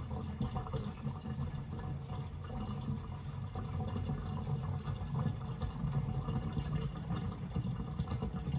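Water draining out of a stainless-steel kitchen sink through a fully opened twist-and-seal basket strainer: a steady, low rush of water going down the drain.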